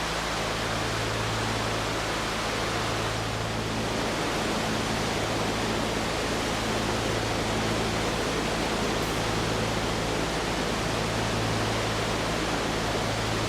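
Cascada de Tamul, a tall waterfall, roaring steadily as an even rushing noise across all pitches, with a low steady hum underneath.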